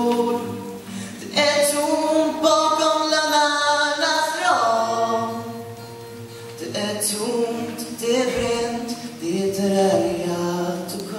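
A male vocalist singing a slow song with long held notes and pitch slides, accompanied by acoustic guitar.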